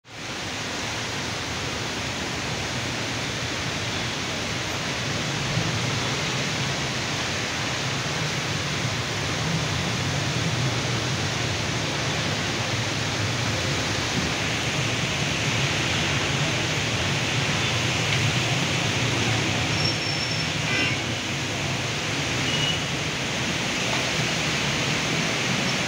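Heavy rainstorm: rain pouring down hard in a steady, dense hiss, with the wind blowing through.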